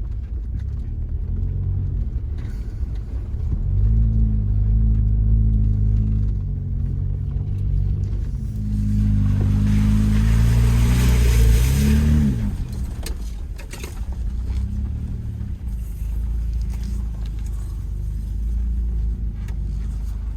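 Jeep Wrangler engine pulling uphill on a rutted off-road trail, revving up twice. During the second rise there is a rushing hiss for about three seconds, then the revs drop sharply and the engine settles back to a steady lower note.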